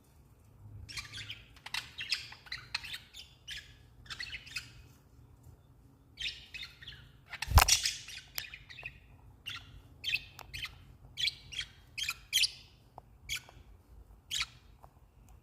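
Pet budgerigars chirping and chattering in short, quick calls throughout, with one sharp knock about halfway through.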